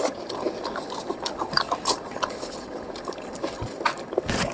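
Plastic-gloved fingers rummaging through raw shrimp in a glass bowl of marinade: wet sloshing with a run of small clicks and squelches.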